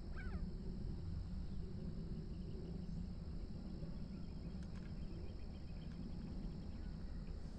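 Outdoor pond-side ambience: a steady low rumble with faint, quick high chirps from insects or birds in the middle of the stretch.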